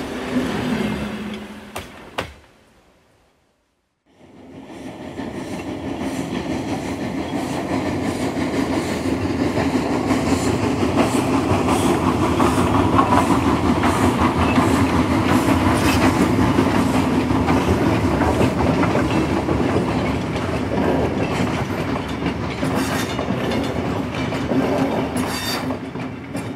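Train running on rails with a regular clickety-clack of the wheels, swelling in after a short silence about four seconds in and slowly fading near the end, like a train passing.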